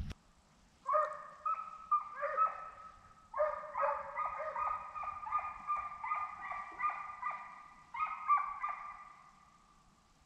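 A pack of deer hounds baying together, giving tongue on a deer's scent trail: many overlapping long bawls that start about a second in and fade out near the end.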